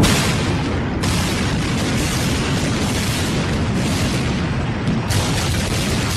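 A sudden loud blast, then several seconds of continuous rumbling noise: a demolition charge going off and the building collapsing.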